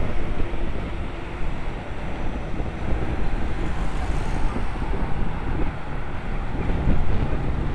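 Wind buffeting a helmet-mounted camera's microphone on a moving bicycle, a steady low rushing, with car traffic on the road.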